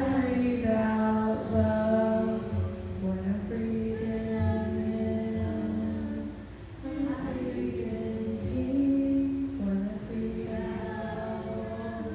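Voices singing in long held notes, phrase after phrase, over low thuds. There is a short break between phrases about six and a half seconds in.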